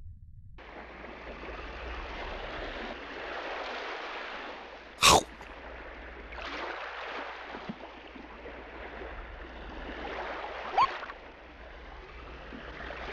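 Underwater bubbling and gurgling water ambience, starting after a brief silence. A short, loud, sharp sound cuts through it about five seconds in, and a smaller one comes later.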